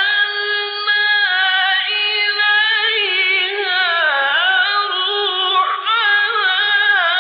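A man chanting the Quran in melodic tajweed recitation: one continuous, ornamented vocal line held high, with wavering turns and glides in pitch.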